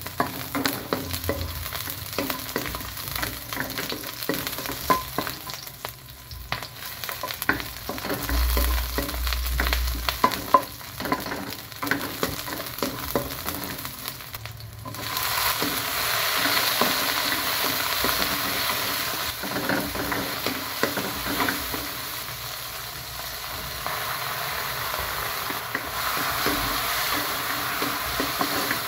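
Onions, garlic and tomatoes sautéing in hot oil in a wok, with a wooden spatula scraping and knocking against the pan as they are stirred. About halfway through, the sizzle becomes louder and steadier.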